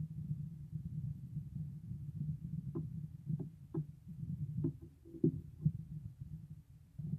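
Low steady rumble with a handful of soft clicks and knocks between about three and six seconds in.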